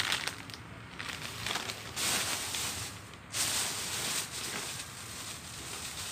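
Plastic packaging and shopping bags rustling and crinkling as goods are handled and rummaged through, louder from about two seconds in.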